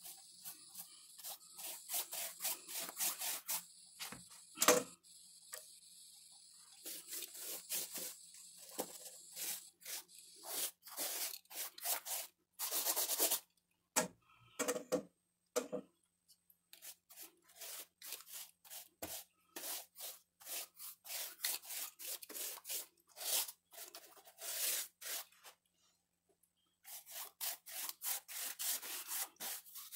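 Wide paintbrush scrubbing wet paint onto a rough plastered wall, the bristles rasping in quick back-and-forth strokes. The strokes come in runs with short pauses between loads.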